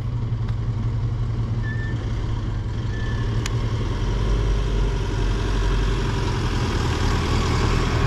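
Delivery van's engine running as it pulls through the intersection and passes close by: a steady low rumble, with the engine and tyre noise growing louder over the second half.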